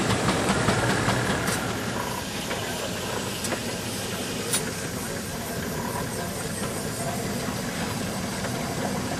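Steam traction engine running as it moves, with a hiss of steam; the sound drops a little after about two seconds.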